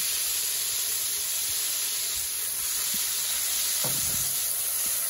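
Water poured onto the hot steel top of a Blackstone gas griddle, sizzling and hissing steadily as it flash-boils into steam. The plate is still well over 350 degrees.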